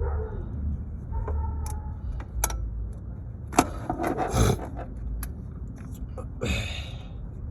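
Hand-tool work on a stuck part, a flat-head screwdriver prying at it. Scattered clicks and scrapes, with a sharp click about three and a half seconds in and a longer scrape near the end.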